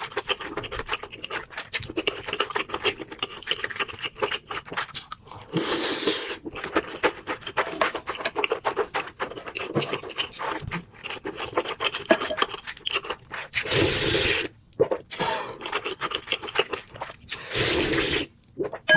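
Close-miked chewing and mouth noises of a person eating: a dense run of small clicks and smacks, broken by three longer hissing rushes.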